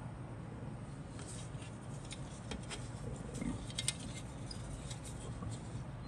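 Scattered light clicks and taps of a grey plastic model-kit sprue being handled, the sharpest about four seconds in, over a steady low hum.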